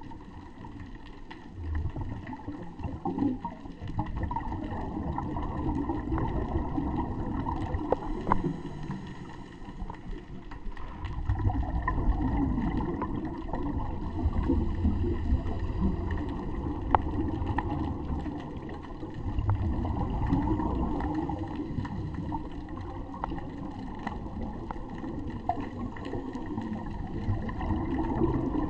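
Scuba diver's breathing through a regulator, heard underwater: muffled rumbling and gurgling bubble noise in surges a few seconds long, separated by quieter pauses.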